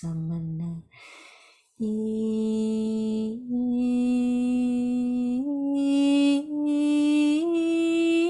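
A woman's voice toning without words: a held note breaks off about a second in for a quick in-breath, then one long unbroken sung tone begins and steps up in pitch four times.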